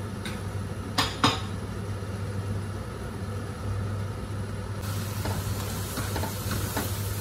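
A spatula stirring and scraping thick tomato masala frying in a steel pot, with light taps against the pot, over a steady low hum; two sharp clicks sound about a second in.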